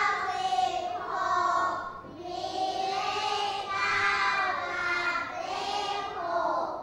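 A class of young children reading a number aloud together in a sing-song chant, in a few drawn-out phrases.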